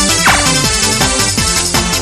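Up-tempo electronic music with a steady beat from a CR Jabu Jabu Beat pachinko machine.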